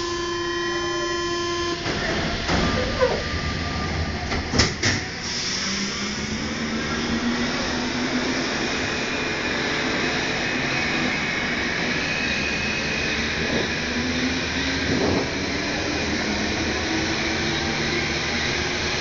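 Rubber-tyred MP89CC Paris Métro train pulling away and running through the tunnel, heard from inside the car. A steady tone stops about two seconds in, a few sharp knocks come a couple of seconds later, and then the traction motors whine, rising in pitch as the train gathers speed and then holding.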